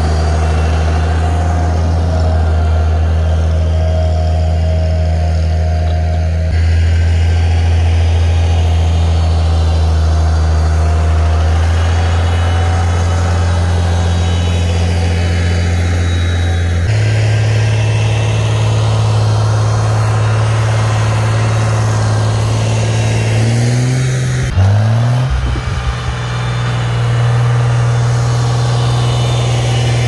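International Farmall 756 tractor engine running steadily under load while pushing deep snow. Its pitch steps up a little about 17 seconds in, then dips briefly and picks back up about 25 seconds in.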